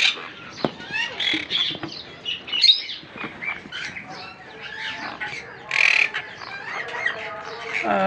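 Ringneck parakeets squawking: repeated short, sharp, high-pitched calls, with a few knocks as the wooden nest box is handled.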